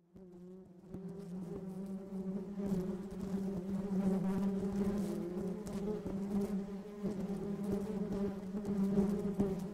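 Honeybee wings buzzing: a steady low hum with a slightly wavering pitch, fading in over the first second, with a few soft clicks.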